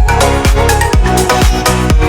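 Electronic dance music with a steady, driving drum beat of about four hits a second over sustained synth notes.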